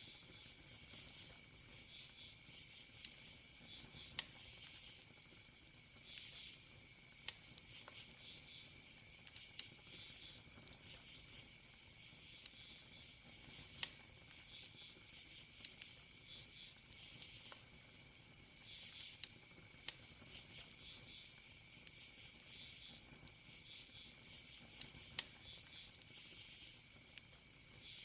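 Wood fire crackling quietly, with sharp pops at irregular intervals, over crickets chirping in short pulsed trains and a steady high insect trill.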